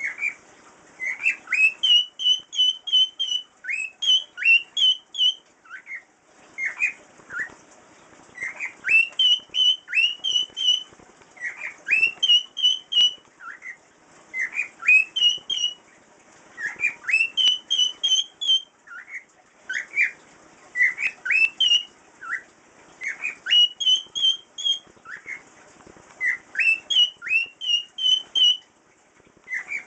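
Cockatiel singing a whistled tune: short rising whistles repeated in phrases of several notes, a new phrase every two to three seconds.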